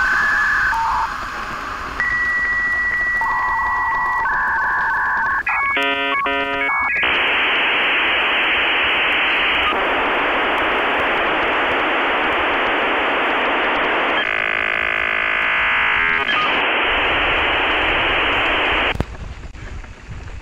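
Dial-up modem handshake: a run of steady beeps at changing pitches, a warbling burst of tones about six seconds in, then a long rushing hiss of static that stops about a second before the end.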